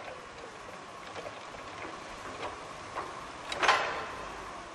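Machinery of an automated warehouse running with a steady mechanical hum and scattered light ticks, and one sharp clank with a short ring about three-quarters of the way through.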